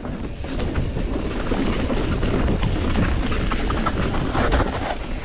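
Steel hardtail mountain bike rolling down a dirt singletrack, heard from a camera mounted on the bike: a steady rumble from the tyres, with many small knocks and rattles from the frame and drivetrain over bumps and roots.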